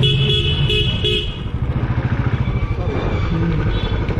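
Vehicle horn honking in a quick series of short beeps for the first second and a half, with a shorter beep again about three and a half seconds in, over a running engine.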